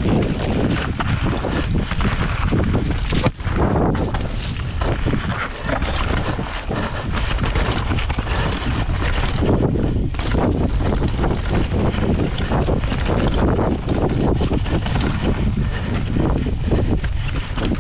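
Mountain bike riding fast down a dirt forest trail, heard from a camera on the rider: a steady rush of wind on the microphone and tyre noise, broken by frequent knocks and rattles from the bike over bumps. There is a brief lull about three seconds in.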